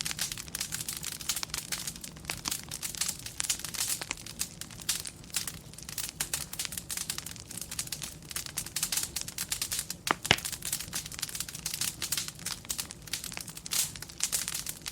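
Wood fire crackling in a fireplace: a dense, steady stream of small irregular snaps and pops, with one sharper pop about ten seconds in.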